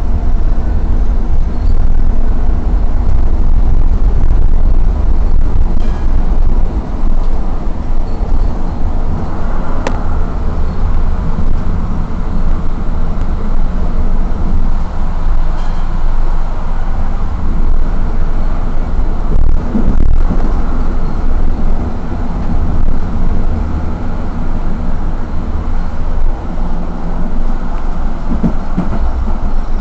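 N8C tram running along its track: a steady, heavy rumble of wheels on rails with a low motor hum, and one sharp click about ten seconds in.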